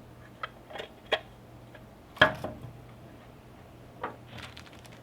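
Light clicks and knocks from parts of a glass-shelf desktop organizer being handled and fitted together, with one sharper, louder knock a little over two seconds in and another about four seconds in.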